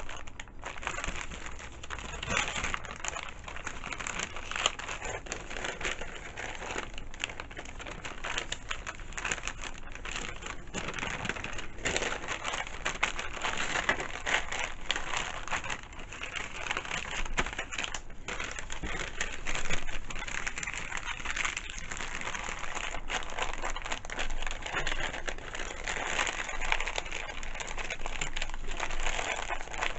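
Wrapping paper crinkling and rustling as it is handled and folded, a continuous crackle with many small sharp crackles.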